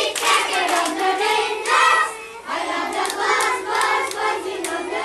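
A group of young children singing together in short rhythmic phrases, with a brief dip about two seconds in.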